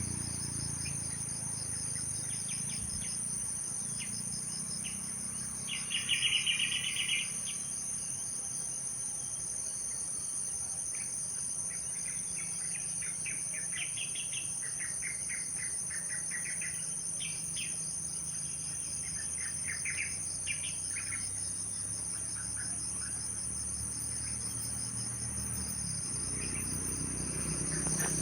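Steady high-pitched trilling of insects, with birds chirping on and off over it; the loudest burst of bird calls comes about six seconds in.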